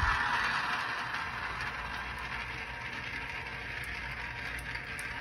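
Several marbles rolling round and round in the plastic funnel bowls of a toy marble run: a steady rolling noise, loudest as they are dropped in and easing off after a couple of seconds.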